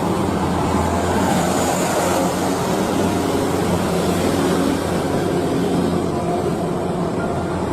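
Steady, unbroken vehicle noise with a strong low hum.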